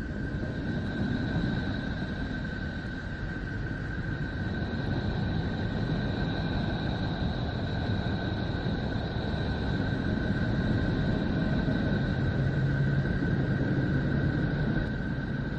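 The sonified 'sound of Neptune', space radio emissions turned into audio: a steady low rumbling drone with two thin, steady whistling tones above it. It grows slightly louder and cuts off suddenly at the end.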